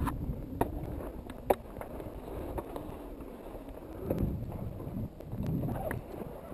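Low wind rumble and rustling handling noise on a helmet-mounted camera, with two small sharp clicks of climbing gear early on and soft bumps a few seconds later.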